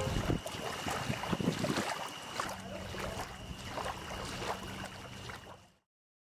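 Small waves lapping and splashing at the water's edge, with wind on the microphone and a faint steady high tone beneath; it fades out shortly before the end.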